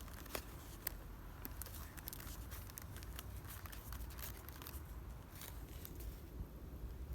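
Faint, irregular crackling clicks scattered throughout, over a low steady rumble of wind on the microphone.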